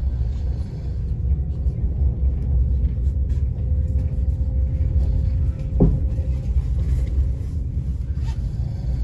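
Steady low rumble of a passenger train running, heard from inside the carriage. A brief falling sound cuts through it about six seconds in.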